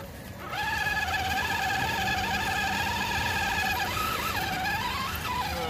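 Small electric drive motor and gearbox of an RC rock crawler whining under load as it climbs steep rock, starting about half a second in and holding one steady pitch, then wavering and rising near the end.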